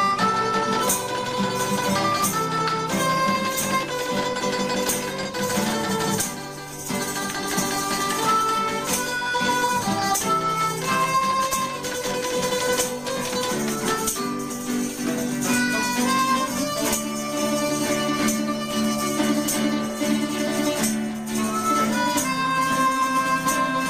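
Small acoustic folk group playing an instrumental passage: a harmonica carries the melody over strummed acoustic guitar, with a tambourine jingling in rhythm.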